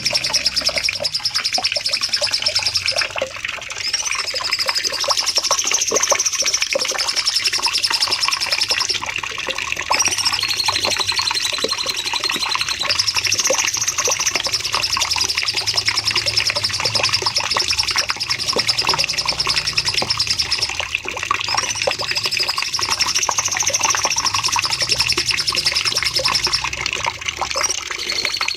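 Cucak cungkok song bird singing a long, unbroken 'nembak panjang' song: a rapid, high trill that rises and falls in long waves, over a busy chatter of quick ticking notes.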